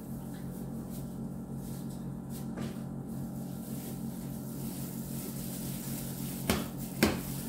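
A steady low hum of a running appliance, with two sharp knocks about half a second apart near the end.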